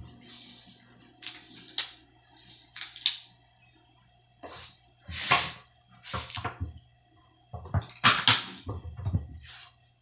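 Kitchen knife peeling and cutting red onions by hand: irregular short, crisp scraping and cutting sounds on the papery skin and flesh, the loudest about five and eight seconds in.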